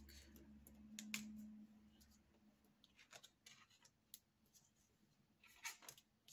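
Faint, scattered taps, clicks and slides of tarot cards being picked up and laid down on a wooden table, with a few quick clicks close together near the end.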